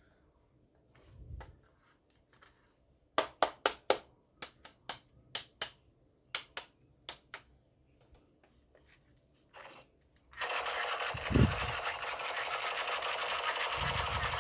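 About a dozen sharp plastic clicks over roughly four seconds. Then, about ten seconds in, an electric toy gun's automatic-fire rattle starts and runs steadily, with a couple of low thumps.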